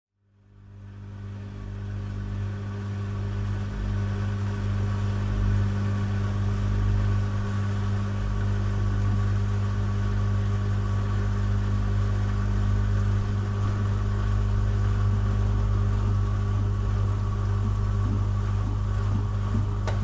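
Steady mechanical hum of coin-laundry machines running, low and unchanging, fading in over the first couple of seconds.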